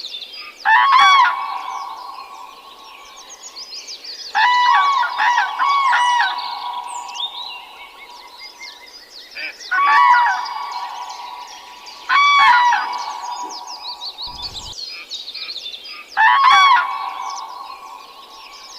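Hornbills calling: five loud bouts, each a quick run of pitched calls, a few seconds apart, over a constant high twittering of smaller birds or insects.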